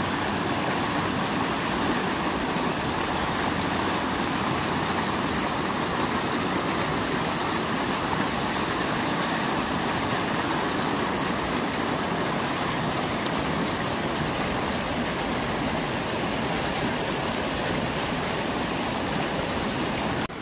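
River water rushing and splashing over rocks in a shallow rapid: a steady, unbroken rush.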